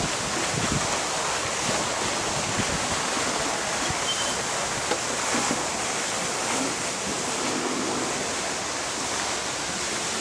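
Steady rush of falling water from a fountain.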